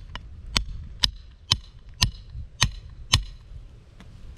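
Hammer blows, six sharp knocks at about two a second, each with a short metallic ring, knocking old roll roofing loose.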